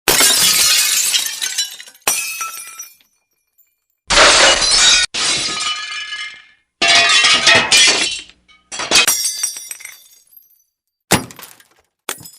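Glass being smashed again and again: about eight separate breaks, each a sudden crash followed by falling, tinkling shards, one every second or two.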